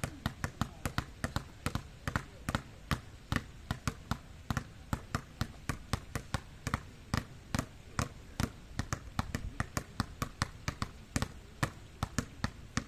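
A quick, uneven series of sharp taps or slaps, about three a second, keeping up a steady pace.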